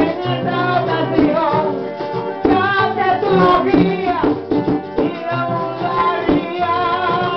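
Live Puerto Rican aguinaldo: a man singing into a microphone over strummed acoustic guitars, with a shaker keeping time.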